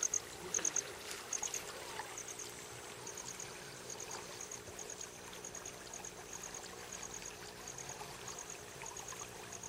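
River water running over a shallow bed, with a steady soft rush. Over it, an insect, cricket-like, chirps high in short groups of three or four, over and over.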